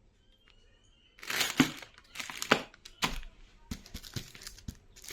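Packaging crinkling and rustling as it is handled, in a run of short bursts starting about a second in.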